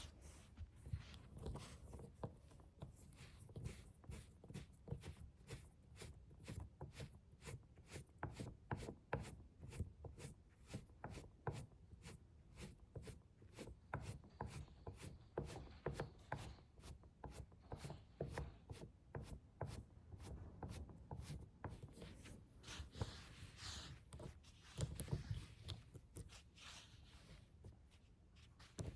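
Soft, steady tapping on a suitcase: many short taps, about two to three a second.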